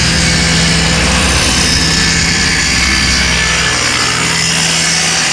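Handheld corded electric circular saw running steadily and loudly as it cuts through a plywood sheet.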